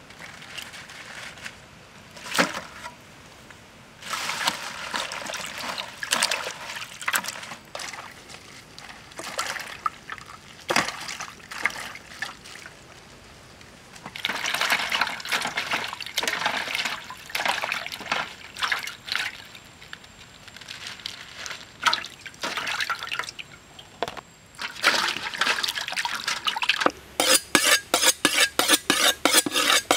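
Bok choy being washed by hand in a metal basin of water, with repeated bouts of splashing and swishing. Near the end this gives way to a fast, even run of knife chops on a wooden cutting board.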